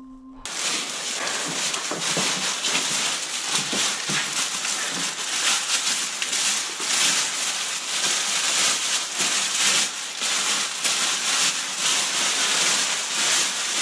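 Dense, continuous close-up rustling and crinkling with many small crackles, starting abruptly about half a second in.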